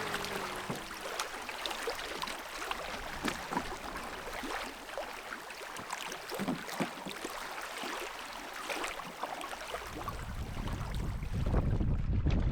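Water splashing and dripping around a canoe, many small sharp splashes over a steady wash of water. About ten seconds in, wind starts buffeting the microphone with a low rumble.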